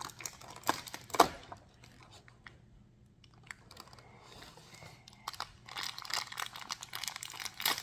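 Plastic mystery-toy packaging being handled and opened: a few sharp clicks in the first second or so, then a steady run of crinkling and crackling in the second half.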